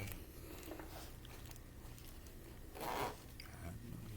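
A fanny pack's zipper is pulled open, a short rasp about three seconds in, against faint handling noise.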